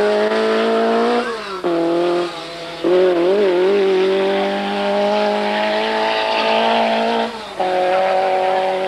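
Group B rally car engine running hard at high revs, its pitch climbing and then dropping sharply a couple of times where the driver lifts or changes gear before it picks up again.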